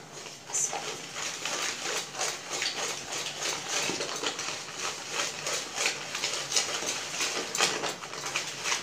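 A hand mixing dry flour and cocoa powder in a bowl: a quick, irregular rustling and scratching of fingers working through the powder and rubbing the bowl, several strokes a second.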